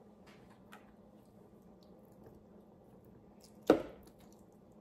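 One sudden, sharp knock of a metal fork striking the wooden serving tray about three-quarters of the way in, with a few faint clicks of eating before it.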